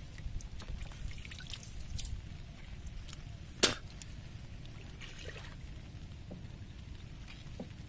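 Water dripping and trickling off a fishing net as it is pulled up out of the water by hand, with small splashes and ticks. A single sharp click a little over three and a half seconds in is the loudest sound.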